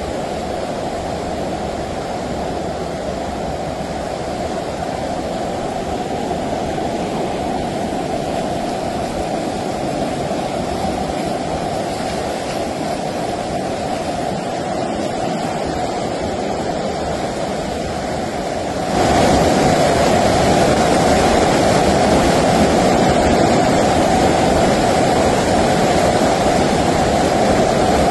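Steady rushing noise of storm water, such as heavy rain or floodwater, that steps up suddenly and gets louder about two-thirds of the way through.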